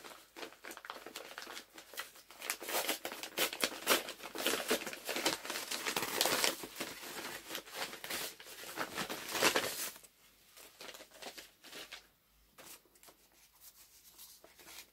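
Paper packaging rustling and crinkling as a wrapped book parcel is handled and lifted out of a subscription box. The crackling is dense for about ten seconds, then drops to a few faint handling sounds.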